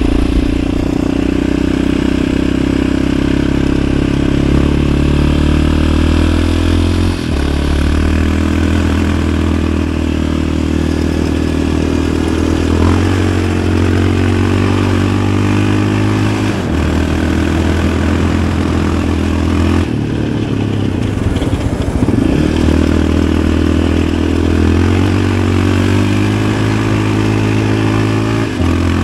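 Yamaha Raptor 700 ATV's single-cylinder four-stroke engine running under way. Its note holds steady for a few seconds, then steps up or down, several times over. There is a brief drop off the throttle about two-thirds of the way in.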